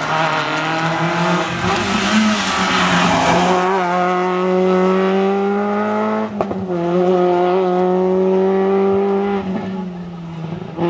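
Peugeot 106 rally car's engine held at high revs under full throttle, with a brief break in the engine note about six and a half seconds in, like a gear change.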